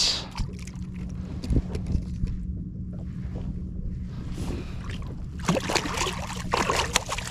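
Water splashing and slapping as a weakfish thrashes in a landing net at the side of a kayak, starting about five and a half seconds in, over a steady low hum.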